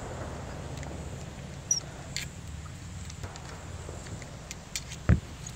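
Phone handling noise: small clicks and rustles over a low steady rumble, with one sharp thump about five seconds in.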